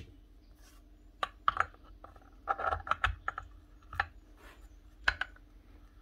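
Small metal parts of a rotary hammer's gearbox being handled and set down on a workbench: irregular light clicks and knocks, a quick run of them about halfway through, some leaving a short metallic ring.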